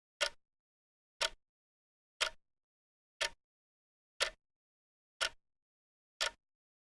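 Clock ticking once a second: single sharp ticks, evenly spaced, with silence in between.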